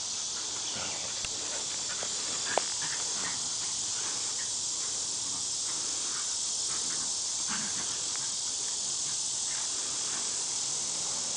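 Steady high-pitched hiss throughout, with faint scattered scuffs and ticks from dogs running and tussling on grass, and one sharp click about two and a half seconds in.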